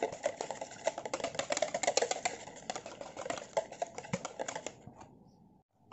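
Wire whisk beating a runny egg mixture in a plastic bowl: rapid clicking and tapping of the wires against the bowl, thinning out and stopping about five seconds in.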